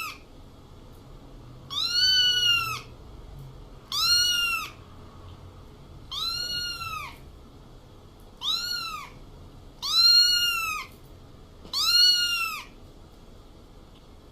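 A domestic cat meowing over and over: six meows about two seconds apart, each rising then falling in pitch.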